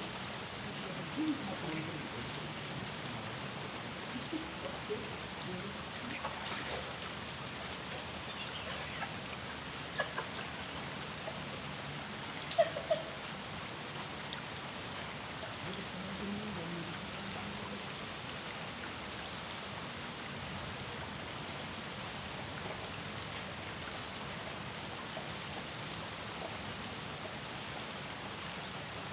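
Steady rain falling on a pond: an even hiss throughout, with a few sharper drip hits in the first half.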